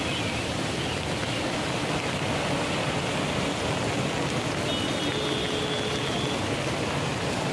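Steady hiss of rain falling, with a faint high tone heard briefly about five seconds in.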